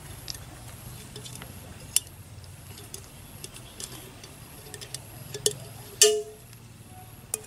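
Small tin can and tape being handled: scattered light clicks and taps, with a louder crackling snap about six seconds in, over a steady low hum.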